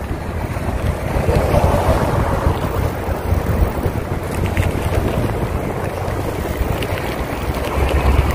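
Wind rushing and buffeting over the microphone of a rider on a moving bicycle: a steady, rough noise with a heavy low rumble, a little stronger near the end.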